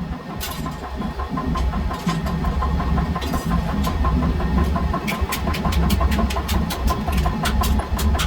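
A motor running steadily with a deep rumble. From about five seconds in, rapid, evenly spaced sharp strikes come at about five a second.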